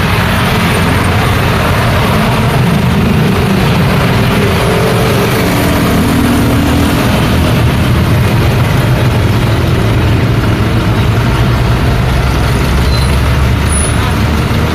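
Busy road traffic: a steady mix of car, truck and bus engines and tyre noise passing, with heavy engine rumble.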